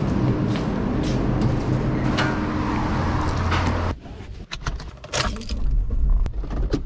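A steady low mechanical drone with a hum, cut off suddenly about four seconds in. After the cut, a run of sharp clicks and rattles inside a car: a seatbelt pulled across and keys jangling by the ignition.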